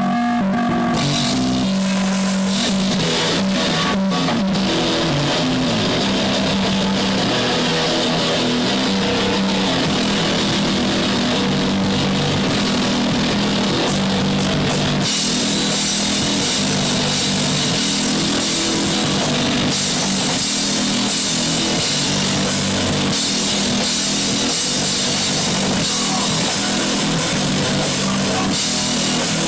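Punk rock song playing, with a drum kit and electric guitar; the full band comes in about a second in and gets denser around halfway through.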